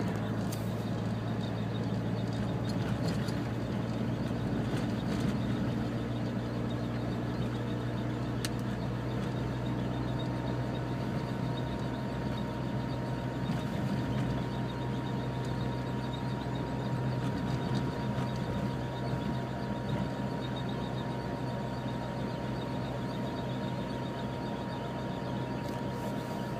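A car running with a steady low hum, carrying an unexplained abnormal noise that the owner believes comes from the front left. A thin, high, steady tone comes in about ten seconds in.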